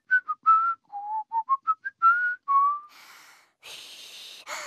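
A man whistles a short tune: about a dozen quick, clear notes stepping up and down over roughly three seconds. Then comes a faint breathy blowing with no note, a child trying and failing to whistle.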